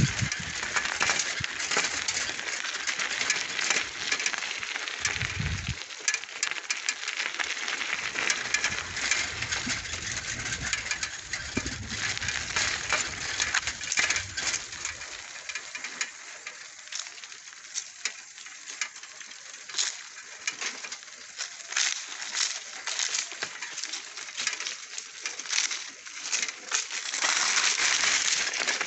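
Footsteps crunching through dry grass and dry fallen leaves, a dense run of small crackles and snaps, with a few low bumps in the first few seconds.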